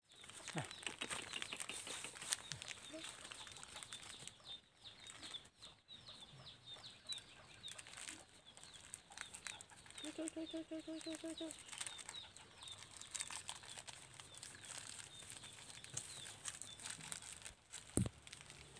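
Outdoor garden sounds: scattered rustles and clicks in grass and dry leaves, with a small high chirp repeating throughout, and a short run of quick pitched pulses, like an animal call, about ten seconds in.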